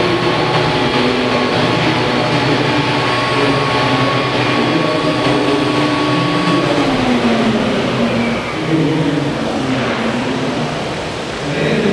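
Large 1:5 scale Bell 430 radio-controlled model helicopter hovering low and settling onto its pad, its rotor and drive giving a steady whine. About seven seconds in the pitch drops and the sound eases a little as it touches down.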